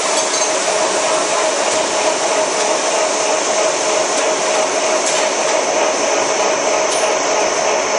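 Puffed corn snack processing line machinery running: a steady mechanical whir with a constant humming tone.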